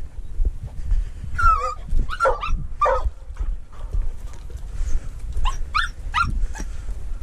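Hunting dog giving excited, pitched yelping barks while on the scent of a mink: a run of about three calls a second or so in, and another run of three or four about five seconds in. Wind rumbles on the microphone throughout.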